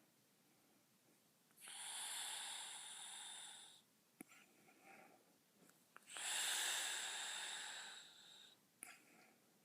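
A sleeping woman snoring: two long, breathy snores, each about two seconds, with a quiet pause between them.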